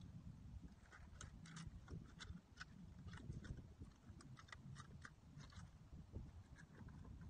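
Faint, scattered clicks and taps of clam shells and stones being handled as clams are picked out from among seaside rocks, over a low rumble.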